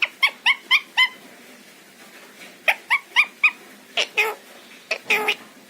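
Pet parrot calling in runs of short, rising squeaky chirps, about four a second, then a couple of longer, harsher calls near the end.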